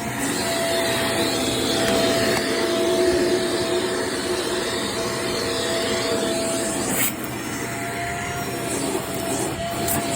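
Vacuum cleaner running with a steady motor whine over the rush of its suction, with a brief sharp change in the sound about seven seconds in.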